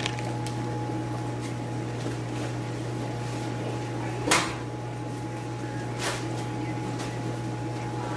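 Steady hum and hiss of running aquarium equipment: sponge filters, air pumps and bubbling tanks. Over it come a few short rustles and knocks of plastic fish bags and a cardboard shipping box being handled, the loudest about four seconds in and another about six seconds in.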